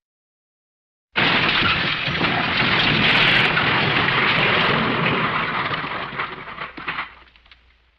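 The MGM 'Elephant Smash' crash sound effect: after a second of dead silence, a loud crash cuts in suddenly and goes on as a dense, rumbling noise for about five seconds, then dies away with a few scattered crackles.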